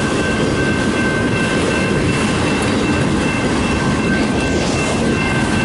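Freight train cars, autoracks among them, rolling steadily past on the rails: a dense, even rumble and rattle of wheels, with a thin steady high-pitched tone running over it.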